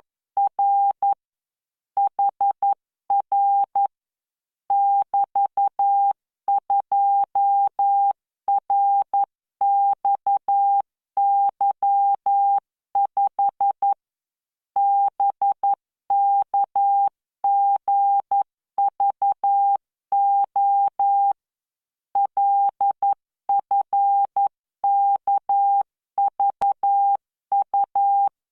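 Morse code tone from CW training software, sending at 11 words per minute: a single steady pitch keyed in short and long beeps (dots and dashes), grouped into characters with pauses of about a second between groups.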